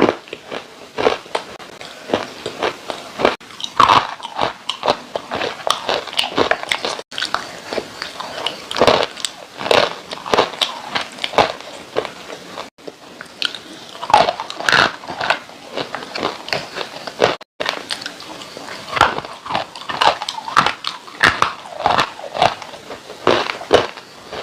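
Dry clay being bitten and crunched close to the microphone: a steady run of sharp, crisp cracks and crumbles, with a few abrupt breaks.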